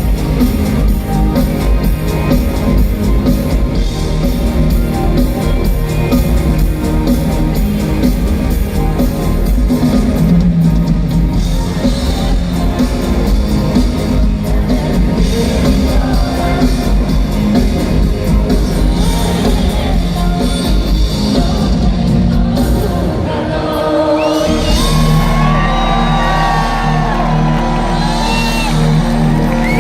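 Live pop-rock band music played loud through a concert PA, with singing. About 24 seconds in the full band drops away, leaving a held low note, and audience screams and whoops come through over it.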